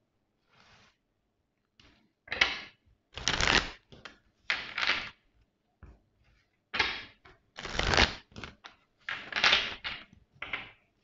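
A deck of oracle cards being shuffled by hand: a run of about seven short papery rattles, each under a second, with brief pauses between.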